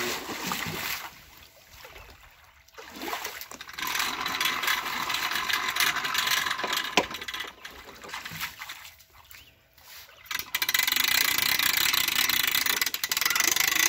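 Water splashing around legs wading in the shallows. Then, from about ten seconds in, a hand-cranked boat winch on a shore ramp ratchets steadily and loudly as it hauls a jet ski up out of the water.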